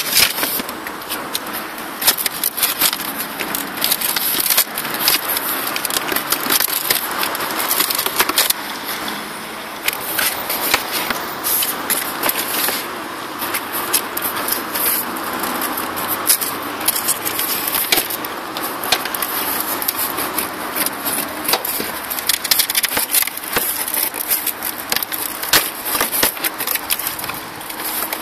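Cardboard packaging being handled: rustling, scraping and sharp knocks as an RC truck is lifted out of its box and the cardboard packing inserts are pulled off its sides.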